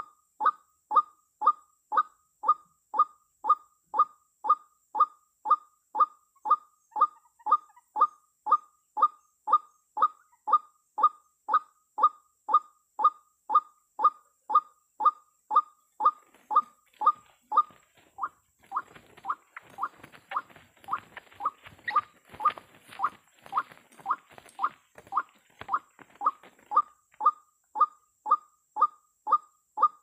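White-breasted waterhen lure call, a short call repeated very evenly about twice a second as trapping bait. A rustling noise runs under the calls from about two-thirds of the way in until near the end.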